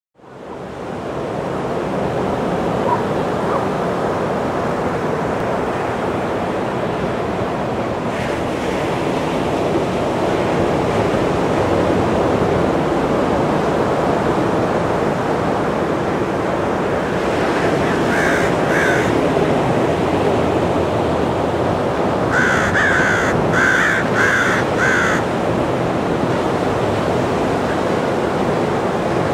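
Small ocean waves breaking steadily on a sandy beach, fading in at the start. A crow caws twice a little past the middle, then five times in quick succession a few seconds later.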